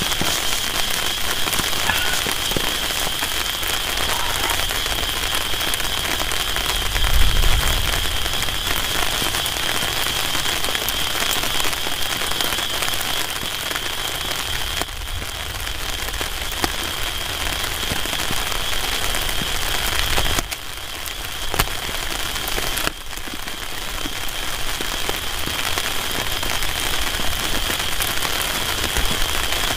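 Steady heavy rain falling on a tarp shelter and the surrounding ground, with a steady high-pitched tone underneath and a brief low rumble about seven seconds in.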